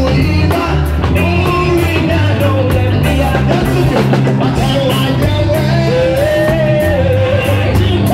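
A man sings gospel into a microphone over amplified backing music with bass and a steady beat, through the hall's sound system.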